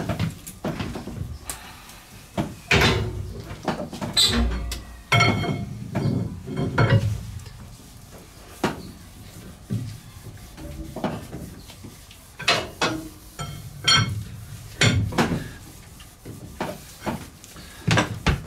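Irregular metallic clanks and knocks, some with a short ring, as a steamboat's compound steam engine is turned over by hand with a long bar.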